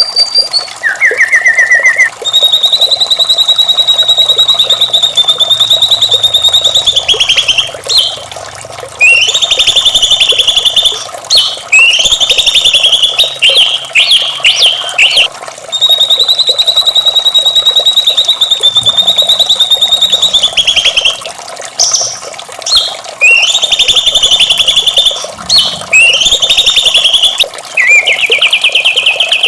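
White-rumped shama singing: long, fast-trilled high phrases of several seconds each, repeated with short breaks between them, over a steady lower background sound.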